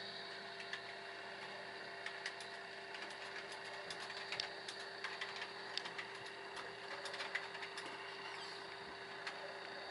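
Brushless motor running steadily on a repaired 18-FET Lyen controller during its test run: a constant hum with a high whine over it, and scattered faint clicks.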